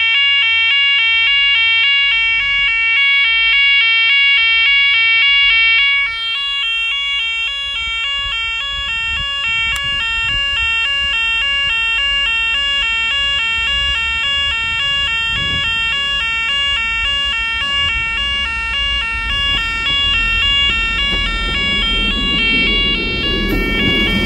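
Level crossing warning alarm sounding continuously, a two-tone yodel that alternates rapidly between pitches. It is slightly quieter from about six seconds in. Near the end a diesel multiple unit approaches with a rising low rumble under the alarm.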